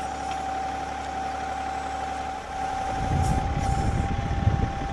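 John Deere 2038R compact tractor's diesel engine running while its backhoe digs in thick pond muck, with a steady whine over the engine. About three seconds in, a deeper rumble grows louder as the work picks up.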